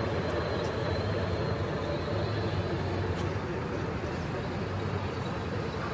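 Radio-controlled construction models' electric motors running, a steady drone with a faint high whine.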